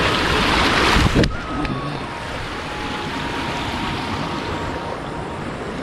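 Steady rushing of water running at a small stream dam, mixed with wind on the microphone. It is louder for the first second or so, then drops abruptly and runs on evenly.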